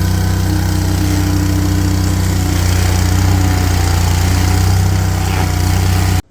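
Engine of a piece of landscaping equipment running steadily at a constant speed, then cutting off suddenly near the end.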